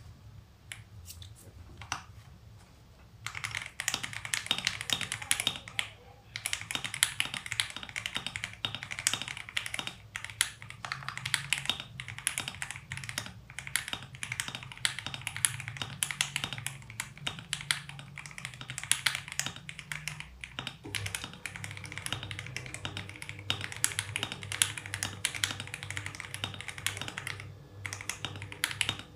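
Mechanical keyboard with lubed (205g0) Jelly Strawberry V2 linear switches being typed on: scattered keystrokes at first, then from about three seconds in a fast, continuous stream of key clacks.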